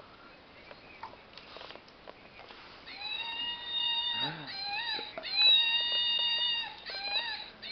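A dog whining in long, high, drawn-out cries, broken by short rising squeaks. It starts about three seconds in and gets loudest midway, as the dog fixes on a plush toy monkey dangled in front of it.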